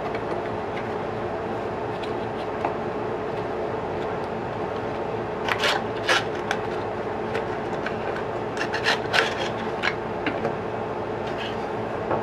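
Cardboard box and packaging rubbing and scraping as the metal-and-plastic clamp parts are slid out by hand, with two clusters of sharp rustles and clicks, one about halfway through and another a few seconds later. A steady background hum runs underneath.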